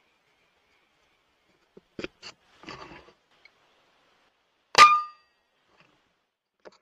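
A single shot from a .22 FX Impact M3 PCP air rifle about five seconds in: one sharp crack with a short metallic ring. A few faint clicks and rustles of handling come before it.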